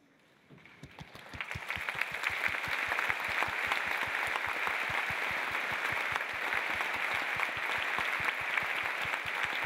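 Audience applause, building from quiet about a second in to steady clapping from many hands.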